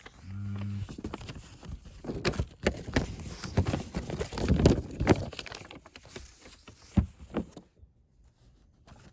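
A cardboard box and its paper manual being handled: a quick run of taps, knocks and rustles that goes quiet near the end. A short hum comes just after the start.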